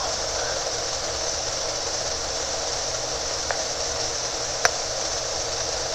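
Steady hiss of an open phone line during a pause in the call, with two faint clicks, about three and a half and four and a half seconds in.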